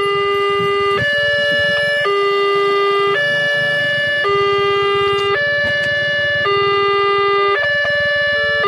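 Railway level-crossing warning alarm sounding its electronic two-tone signal, switching between a lower and a higher tone about once a second, while the crossing's barrier booms come down.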